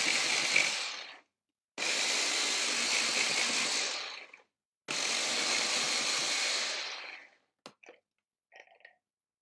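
Blender's mini chopper attachment pulsing spinach leaves to chop them finely, not to a purée. One motor run ends about a second in, then two more runs of about two and a half seconds each follow, each winding down as it stops. A few short, faint clicks come near the end.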